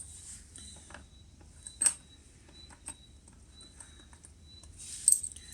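A few light metallic clicks and taps as the water pump housing bolts are picked up and set in place. There is one sharper click about two seconds in and a small cluster near the end.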